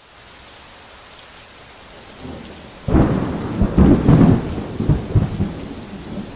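Steady rain hiss, then a loud, long rumble of thunder beginning about three seconds in.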